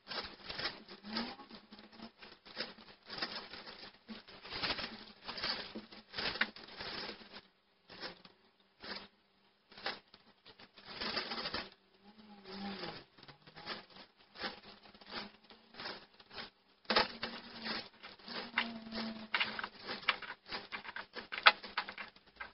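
Clear plastic freezer bags crinkling and rustling while handfuls of chopped leek, celery and sliced carrot are scooped in and dropped into them, in irregular clusters of crackles and light patters with a short lull about halfway through.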